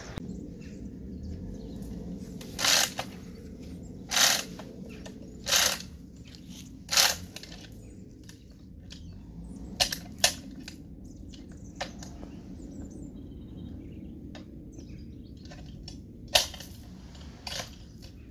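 Manual chain block being hauled to tighten a chain-and-cable pull on a tree stump: the hand chain rattles through the block in four short strokes about a second and a half apart. After that come scattered sharp metallic clicks.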